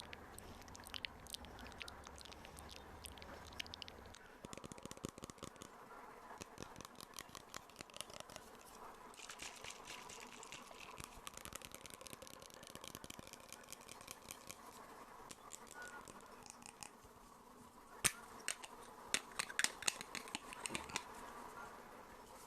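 Close-miked ASMR trigger sounds: soft crackling and fine clicking that thickens for a few seconds in the middle, with a handful of sharper, louder clicks near the end.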